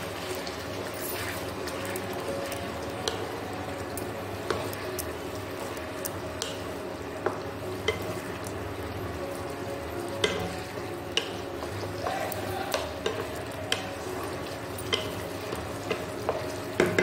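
Chilli chicken sauce sizzling and bubbling in a non-stick wok while a plastic spatula stirs it, with scattered clicks of the spatula against the pan.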